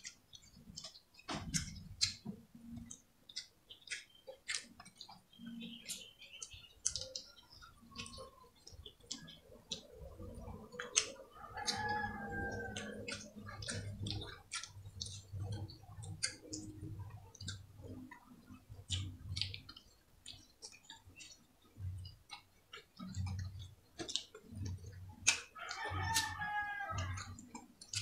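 Close-up eating sounds: chewing and many short wet mouth and finger clicks from people eating with their hands. Twice a rooster crows in the background, once about twelve seconds in and again near the end, each crow lasting about two seconds.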